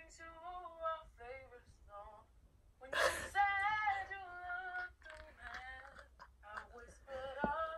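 A woman singing unaccompanied in a voice message played back through a phone speaker, holding notes and sliding between them, loudest about three seconds in.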